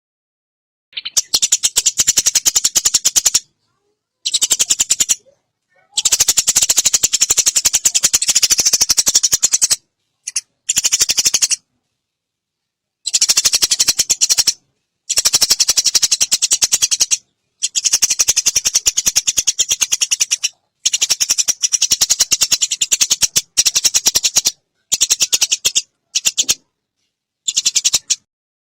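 Eurasian tree sparrow chattering: long runs of rapid, dry chips in about a dozen bursts of one to four seconds, each cutting off abruptly.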